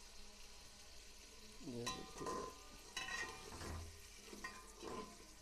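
Chicken sizzling in oil with fried onions in a cooking pot, with a steady frying hiss. From about two seconds in, a spoon stirs the chicken, scraping and clinking against the metal pot about six times.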